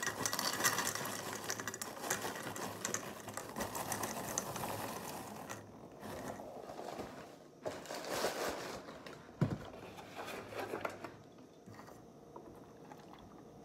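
Dry cereal poured from a box into a ceramic bowl: a dense rattling patter of pieces hitting the bowl, stopping about halfway through and starting again for a second pour, with a single knock during the second pour.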